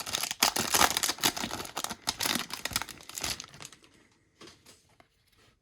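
Foil booster pack wrapper crinkling and tearing as it is ripped open, for about three and a half seconds, then a few faint ticks.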